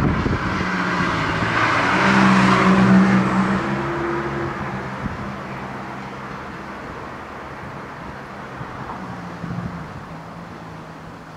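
A vehicle passing close by out of sight, with a low steady hum under a rushing noise. It is loudest about two to three seconds in, then fades away slowly.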